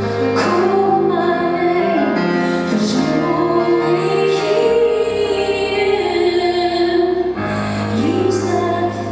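A woman singing live over piano, holding long notes with vibrato above sustained low chords.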